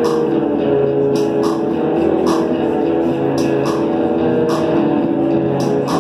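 Live rock band playing: electric guitar with drum hits cutting through every second or so.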